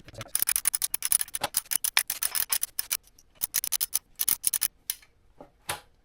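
Rapid, irregular sharp clicking in two long runs, with a short pause about three seconds in and a single click near the end, from hand work on the lawnmower's engine.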